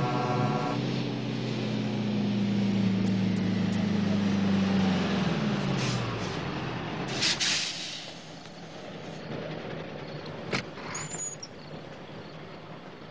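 Big truck pulling up to a stop: a steady engine drone that sags in pitch and fades as it slows, then a short hiss of air brakes about halfway through, followed later by a sharp click.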